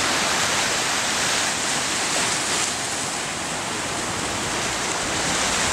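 Sea water washing at the shore, a steady even hiss with no distinct breaks or splashes.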